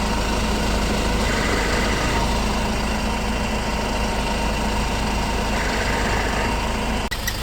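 Hyundai Grand Starex van engine idling steadily. This is a high-mileage engine, about 250,000 km, and the sound is its engine-bay noise.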